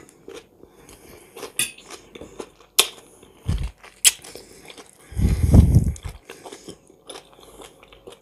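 Close-miked eating: chewing and crunching of cucumber-and-tomato salad and smoked fish, with a few sharp clicks of a metal fork against a china dish. About five seconds in comes a dull low thump lasting about a second, the loudest sound.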